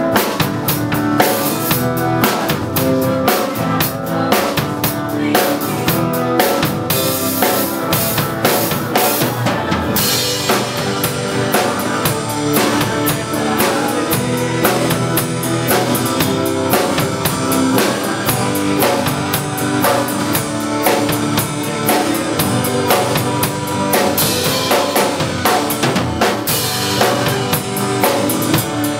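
Background music with a driving drum kit beat.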